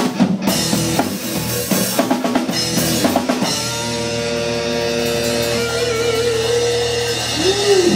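Live rock band playing: drum kit hits and electric guitar for about three and a half seconds, then the drums drop out and a held electric guitar chord rings on, with a wavering, bending note near the end.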